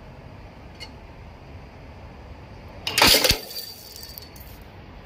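Automatic feeding riveting machine cycling once about three seconds in: a loud metallic clash with two sharp knocks in quick succession as the head sets two rivets in a steel strap, followed by a brief high metallic ring.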